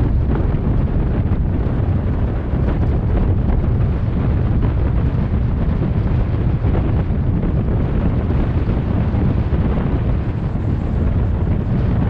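Wind buffeting the microphone: a loud, steady low rumble without pause.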